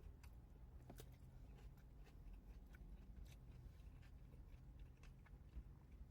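Near silence: faint scattered clicks of someone chewing a burger over a low steady rumble.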